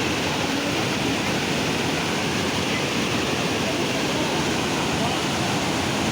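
Waterfall rushing, a loud, steady wash of falling water.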